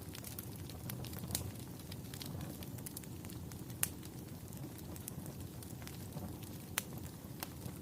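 Fire crackling: a steady low rumble with sharp pops scattered irregularly through it, the loudest about four seconds in and again near seven seconds.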